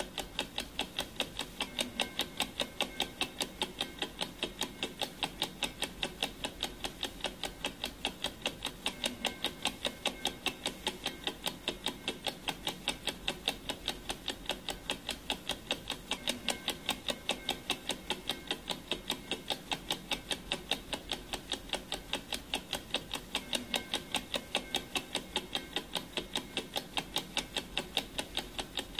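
Clock ticking: a fast, even train of sharp ticks that runs on without a break, the ticking track of a countdown timer.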